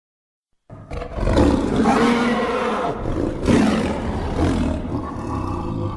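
Godzilla-style kaiju roar sound effect: a long, loud roar that starts suddenly out of silence just under a second in, surges again about halfway through, and trails off at the end.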